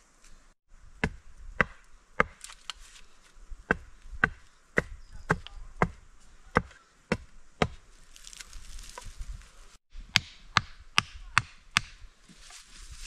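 Wood being chopped with an axe: sharp strokes about two a second, pausing for a couple of seconds past the middle before a quicker run of five more.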